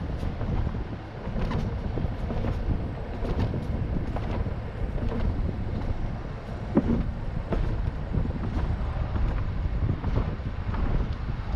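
Wind buffeting a roof-mounted action camera's microphone as the car drives, with low road rumble and a few light knocks.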